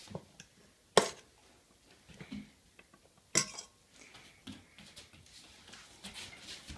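Two sharp clicks about two seconds apart, with a few softer knocks and taps in between: a dog's paws and claws striking and scraping a hard plastic balance platform as she steps on and off it.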